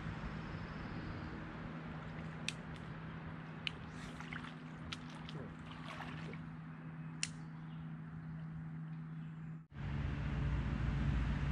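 Small water sounds at a muddy lake edge, squishing and trickling, with a few sharp ticks, over a steady low hum. The sound drops out for an instant near the end and comes back louder.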